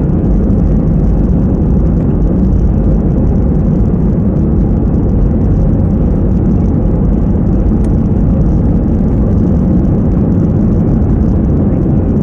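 Airbus A320-family airliner's jet engines at takeoff power during the takeoff run, heard from inside the cabin as a loud, steady, low-pitched roar.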